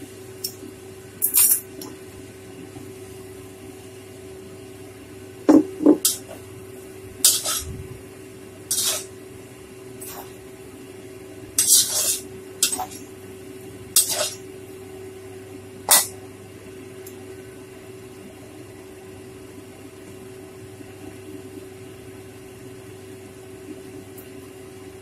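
Metal spatula scraping and clinking against a stainless steel wok while rice vermicelli is stir-fried, about a dozen short, separate clatters through the first two-thirds. After that there is only a steady low hum.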